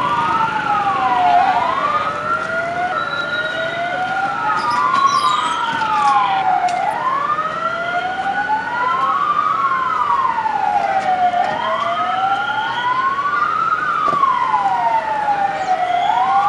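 Two or more emergency-vehicle sirens, from the ambulances at the scene, wail at once. Each rises and falls slowly over a few seconds, out of step with the others, so the tones cross.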